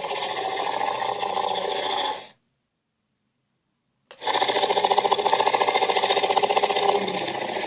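Made-up dinosaur sound effect: a long growl with a fast pulsing rattle, cut off abruptly about two seconds in. After about two seconds of dead silence, a second growl starts and runs on.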